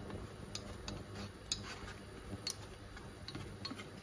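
Chopsticks stirring minced beef in a cooking pot, knocking and scraping against the pot with about a dozen light, irregular clicks.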